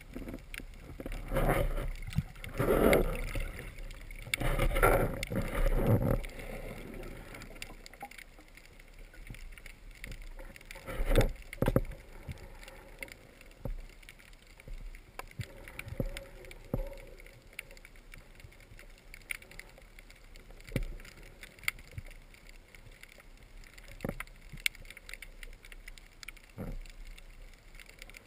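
Underwater sound picked up by a camera on a speargun during a dive: water rushing over the housing in several surges in the first six seconds and again briefly near the middle, then a quieter underwater hiss with scattered sharp clicks.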